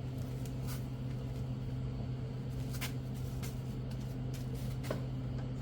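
Steady low hum of garage room noise, with a few faint light clicks and taps as the new rubber window weather strip is handled and fitted against the car door.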